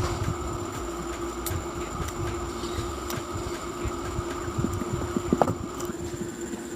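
Cinni table fan running at high speed: a steady motor hum with a held tone over a low rush of air, and a sharp click about five and a half seconds in.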